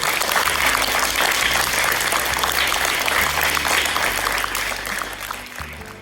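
Audience of schoolchildren and adults applauding, a dense, steady clapping that begins to fade near the end.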